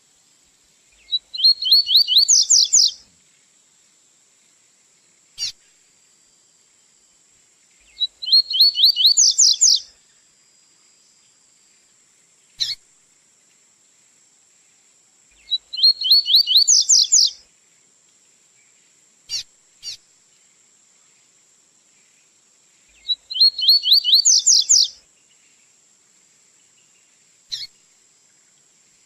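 Double-collared seedeater (coleiro) singing its tui-tui style song: four phrases of rapid repeated high notes, each about two seconds long and about seven seconds apart, with single short call notes between the phrases.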